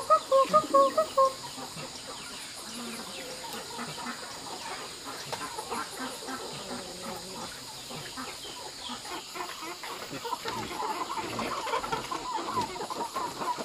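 Chickens clucking. A loud run of quick clucks comes in the first second or so, then it goes quieter. A steady string of clucking comes back over the last few seconds.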